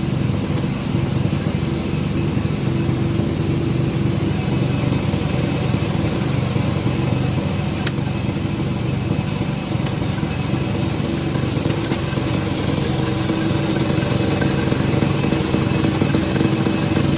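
Sawmill machinery running steadily: an engine-driven drone that holds an even pitch without revving.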